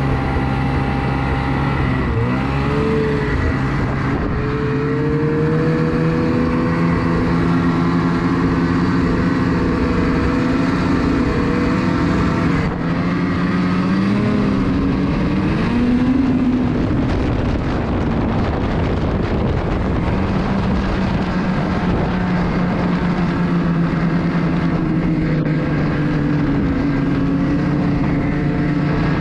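Ski-Doo 600R E-TEC two-stroke snowmobile engine running under way, its pitch rising and falling with the throttle.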